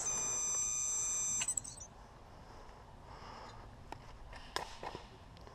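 A steady electronic beep, held for about a second and a half and cutting off sharply, followed by low background rustle with a few faint clicks.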